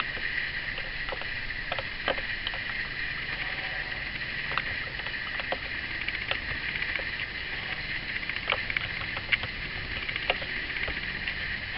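Pencil drawing dimension lines on paper along a plastic T-square, over a steady hiss, with a dozen or so light clicks scattered through it as the pencil and drawing tools touch the board.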